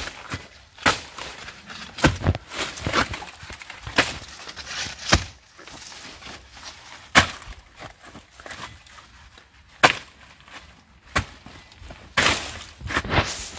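Irregular sharp snaps and crunches of dry plant material breaking, about a dozen spread unevenly through the stretch.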